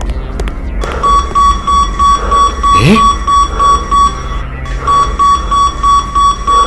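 Library anti-theft security gate alarm beeping rapidly, about four beeps a second, set off by a book carried through the gates without being checked out. A short rising whoosh sounds about three seconds in, and the beeping breaks off briefly past the middle before starting again.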